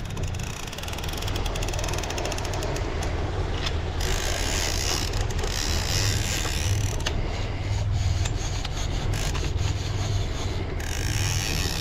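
Large conventional trolling reel being cranked, its gears and ratchet clicking steadily as line is wound in against a hooked fish, over a low steady rumble.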